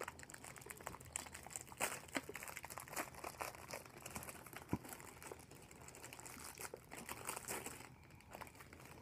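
Plastic packaging of a box of macarons crinkling and crackling as it is handled and opened, in irregular bursts of crackles.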